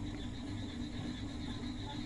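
Steady low electrical or fan-like room hum with a faint high whine above it, under the light scratch of a ballpoint pen writing on paper.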